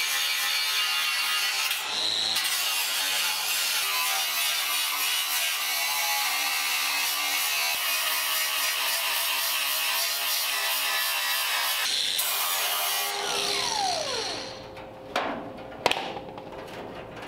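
Angle grinder with a flap disc grinding steadily along the hemmed edge of a Ford Model A's steel door skin, to break through the hem and free the skin. The grinding briefly lets up about 2 and 12 seconds in. About 13 seconds in the grinder is switched off and spins down with a falling whine, followed by a couple of sharp knocks.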